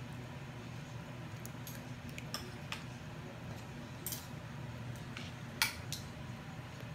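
A few light, sharp taps and clicks, a toddler's hands and a bread roll knocking on a high chair tray and tabletop, the loudest about five and a half seconds in. A steady low hum runs underneath.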